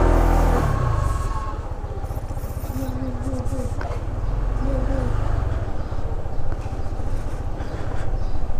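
Honda ADV150 scooter's single-cylinder engine running steadily with a low, rapid pulsing rumble.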